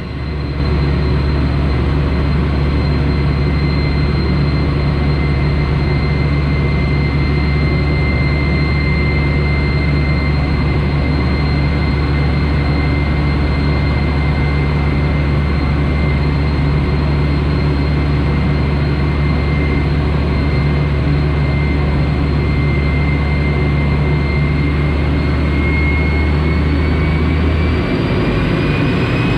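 Canadair CT-133 Silver Star jet's Rolls-Royce Nene turbojet running steadily in flight, with a low drone under a high steady whine. Near the end the whine rises in pitch and the low drone drops out, as the engine's power changes.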